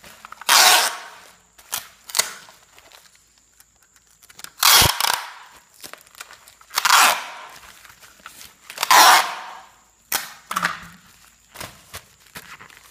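Brown packing tape being pulled off a handheld tape dispenser and pressed onto a plastic-wrapped parcel: four loud rips about half a second each, with smaller clicks and snaps between them as the tape is cut on the dispenser's teeth.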